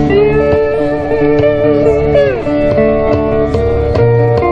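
Live band music played through a PA, led by guitar. A long held, wavering note slides down in pitch about two seconds in, then other notes follow.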